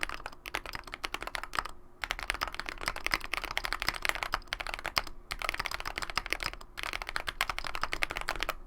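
Fast typing on a mechanical keyboard with Holy Panda tactile switches, lubed with Krytox 205g0 and filmed, in an aluminium-plate KBD75 build with case and PCB foam: a rapid run of keystroke clacks with brief pauses about two seconds in, about five seconds in, and near seven seconds.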